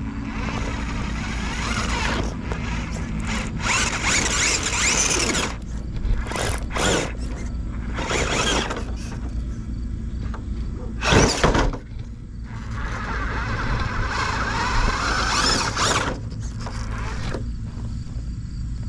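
An RC rock crawler's electric motor and gears whine in stop-and-go bursts as it climbs over rocks and dirt, the pitch wavering with the throttle, with the tyres scrabbling on the loose ground. One sharper, louder burst comes about 11 seconds in.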